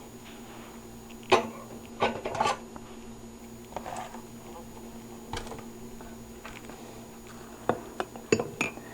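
Scattered light knocks and clinks of a cup or carafe being handled, about seven in all, over a faint steady hum.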